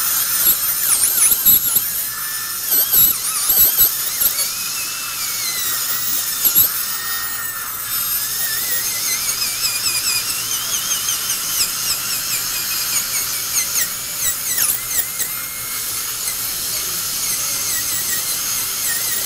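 Dental handpiece running with a high-pitched whine whose pitch dips and rises as the bur bears on the tooth, grinding down high spots on a dental bridge to even out the bite.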